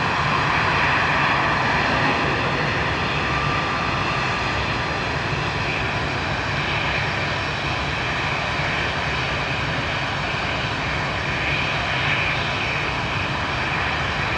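Jet engines of an Airbus A320-family airliner at taxi power: a steady rumble with a faint high fan whine, holding level with no spool-up.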